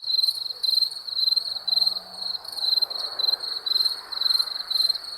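Crickets chirping: a steady rhythm of high-pitched pulsed chirps, about two a second, with a fainter higher trill over them.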